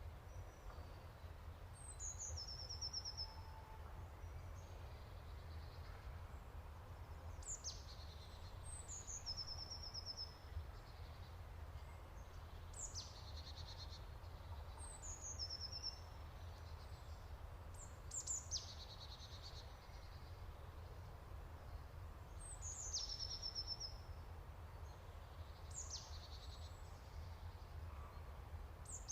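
Leafbird calling: a repeated high call made of a quick falling whistle and then a short trill, coming every two to three seconds, over a steady low rumble.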